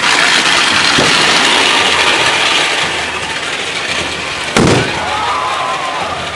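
Street crowd noise with a dense rushing hiss, then one loud bang of a firework banger about four and a half seconds in.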